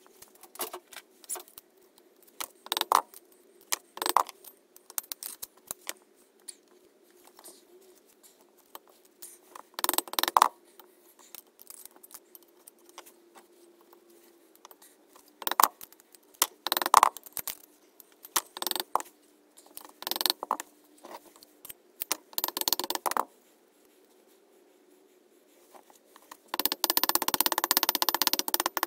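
Cylinder barrel of a BSA Fury twin being worked down over the pistons onto the crankcase: scattered clinks and knocks as the metal parts are handled, then near the end a rapid run of mallet taps on top of the barrel to seat it on its locating dowels.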